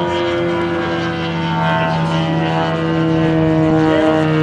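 Giant-scale radio-controlled P-47's 450 cc engine and propeller running at power overhead, a steady engine sound whose pitch shifts a little, rising briefly near the end.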